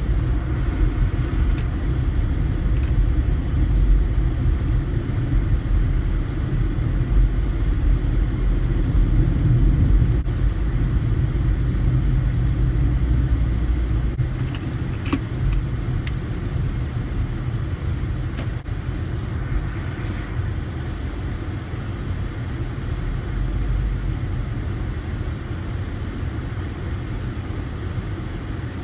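A car on the move: steady low road and engine rumble, easing slightly about halfway through.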